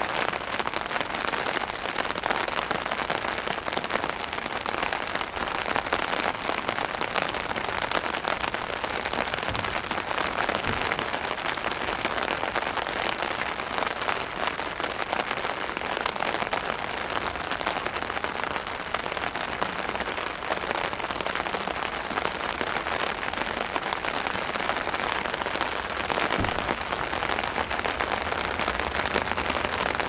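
Steady rain falling, an even hiss made of many small drop ticks.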